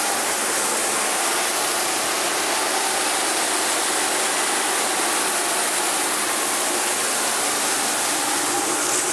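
Aerosol spray paint can hissing in one long, unbroken spray.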